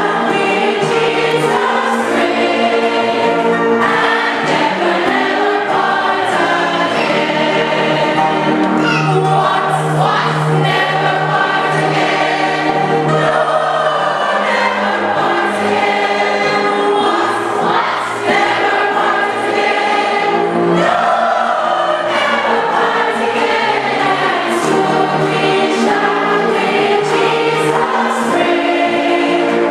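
Congregation singing a closing hymn together with instrumental accompaniment, steady and continuous.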